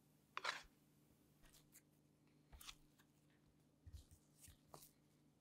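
Faint sounds of sourdough bread dough being tipped out of a bowl onto a floured board and worked by hand: a brief rustle and slap about half a second in, then scattered soft taps and rustles.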